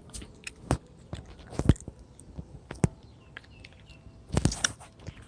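Irregular clicks and knocks of handling noise close to the microphone, the loudest cluster near the end.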